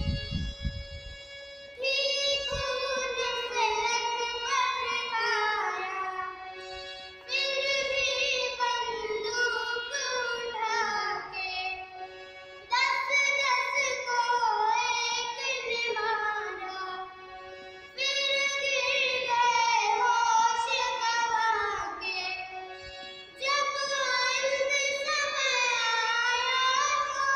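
A young girl singing a melodic song in five phrases, each beginning a few seconds after the last, to a harmonium accompaniment with steady held notes.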